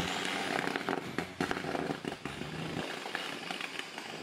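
Rock crawler buggy rolling over on boulders: a dense run of crackling knocks and clatter as the cage and tyres hit rock, over the running engine, whose low note stops near the end.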